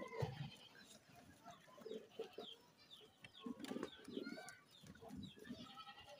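Faint farmyard birdsong: many short chirps from small birds, with chickens clucking, and a few soft knocks as goats feed at a wooden trough.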